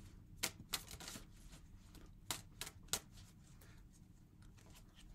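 Tarot cards handled and shuffled: a few short, sharp card snaps and taps, two near the start and three more about two seconds in.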